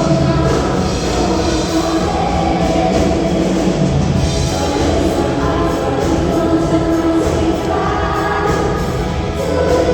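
Pop band music with singing, played live through the PA during a sound check.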